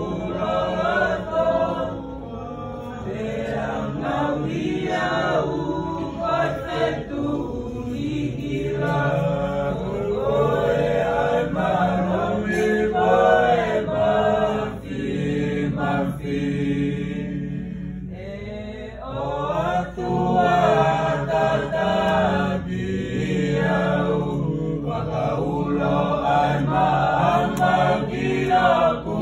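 Choir of mixed voices singing a Tongan hymn in long, sustained phrases, with a short break between phrases about eighteen seconds in.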